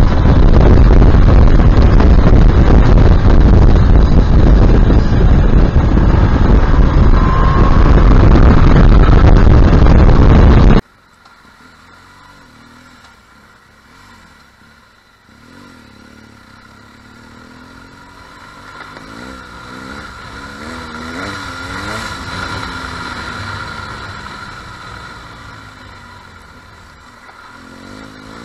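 Loud, even wind rush buffeting a motorcycle-mounted camera at road speed, which cuts off abruptly about eleven seconds in. Then a much quieter motorcycle engine in traffic, its pitch rising and falling with the throttle and swelling louder before easing off again.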